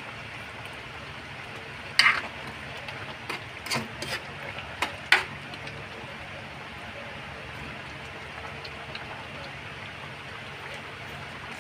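Pot of chicken caldereta simmering steadily in its tomato sauce; between about two and five seconds in, a handful of sharp clinks and scrapes of a spoon against the pot as the stew is stirred.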